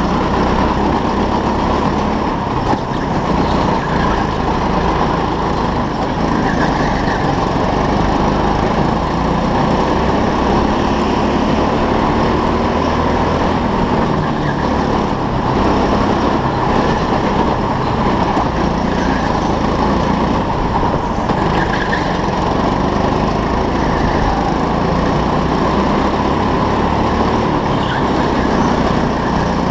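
Go-kart running at racing speed around the track, its engine and road noise heard from the kart's onboard camera, a steady unbroken drone.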